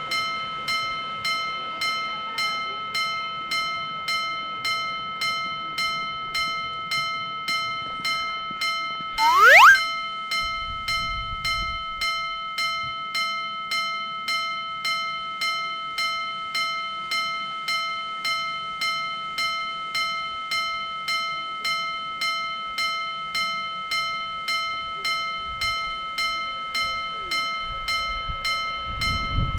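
Japanese railroad level-crossing warning bell ringing in an even, repeating beat of bright chiming tones. About nine seconds in comes a brief, loud rising whistle.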